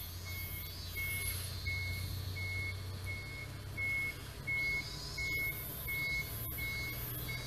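Short, high electronic beeps repeating evenly about every 0.7 seconds, over a steady low hum.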